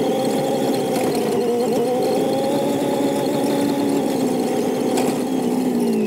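GAZ-69's four-cylinder engine running steadily while driving over a dirt track, heard from inside the cab. The engine note climbs slightly over the first few seconds and drops near the end as the vehicle slows.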